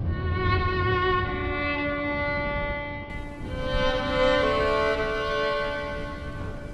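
Background music: a slow melody of long held notes, changing pitch every second or so.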